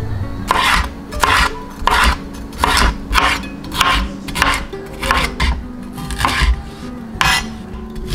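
Chef's knife slicing bell peppers into strips on a cutting board: a steady series of crisp strokes, about one every half to two-thirds of a second, each a knife cut through the pepper and onto the board.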